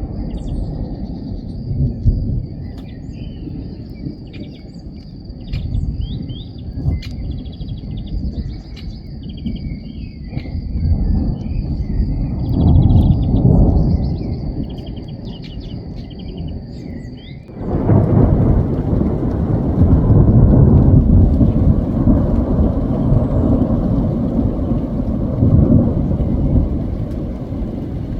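Thunder rumbling and rolling, swelling and fading, with birds chirping over it. About two-thirds of the way in the sound changes abruptly to rain hissing under continued thunder.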